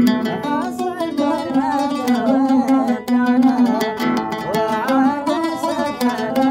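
Oud music: quick plucked notes in an ornamented Arabic melody, with slides and runs over a recurring low note.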